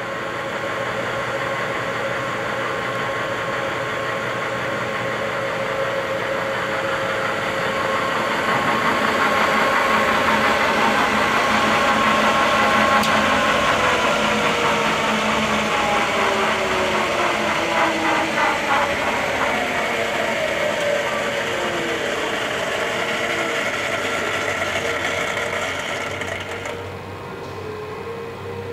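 Wilton 2035 variable-speed geared-head floor drill press running under power with a steady mechanical whine. From about halfway through, its pitch glides down as the variable speed is turned lower. The sound drops suddenly and gets quieter near the end.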